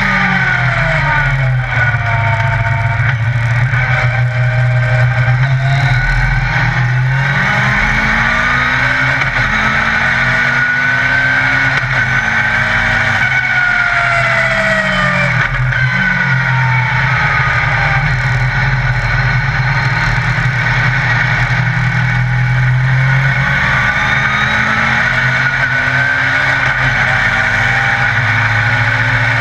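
Yamaha XJR1300 inline-four motorcycle engine in a Legend Car racing car under load on track, heard from inside the cockpit. The revs repeatedly drop and climb again as the car brakes and accelerates.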